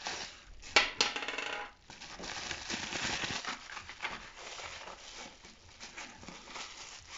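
Sharp clack about three quarters of a second in, followed by a short rattling clatter and lighter handling clicks: the HDR 50 revolver's spare cylinder being handled and set down on a table.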